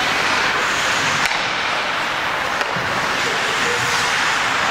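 Ice hockey game ambience in an arena: a steady hiss of play and crowd noise, with a sharp click about a second in and a fainter one near the middle.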